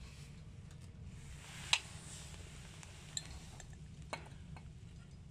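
A few light clicks and clinks of a glass mug being handled on a metal display hook. The loudest comes about two seconds in and three softer ones follow, over a low steady hum.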